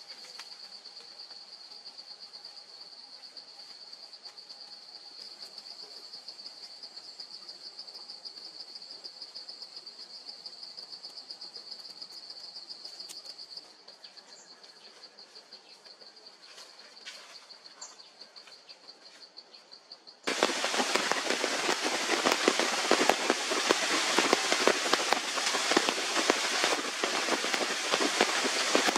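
A steady high insect trill, with faint forest background, fades out about halfway through. About two-thirds of the way in, heavy rain starts suddenly, loud and dense, falling on the forest foliage and ground.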